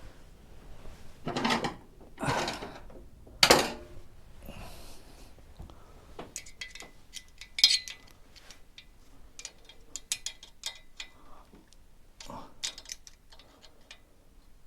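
Steel spanners and tools clinking and scraping on the rocker gear as the tappet adjuster lock nuts are tightened. There is a handful of louder knocks and rustles early on, then a run of quick metallic clicks, some with a short ringing tone.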